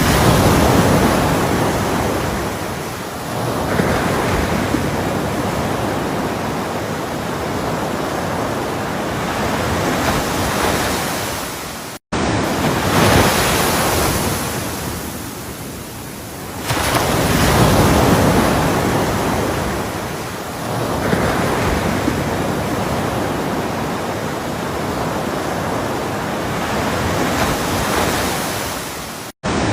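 Ocean surf, waves breaking and washing in, the noise swelling and ebbing every few seconds. The sound cuts out completely for an instant twice, about twelve seconds in and near the end.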